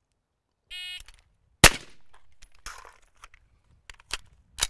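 Shot timer beep, then a single loud shot from an AR-style rifle. It is followed by scattered clicks and knocks as the empty magazine is dropped and a fresh one loaded, with two sharper clacks near the end.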